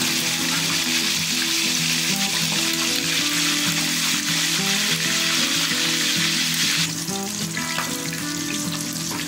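Two whole Indian mackerel frying in hot oil in a stainless steel pan: a steady, dense sizzle and crackle of bubbling oil. The sizzle falls off noticeably about seven seconds in.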